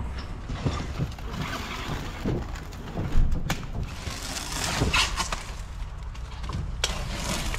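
Plastic rustling and crackling as a black plastic bag and clear stretch wrap, pulled off a hand roll, are wrapped around a race engine, with several sharp knocks.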